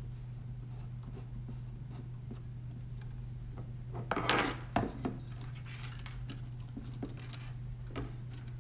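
Faint clicks and scraping of a precision screwdriver turning small screws into a carbon-fibre robot frame while servo wires are handled, with a louder rattle of parts about four to five seconds in. A steady low hum sits underneath.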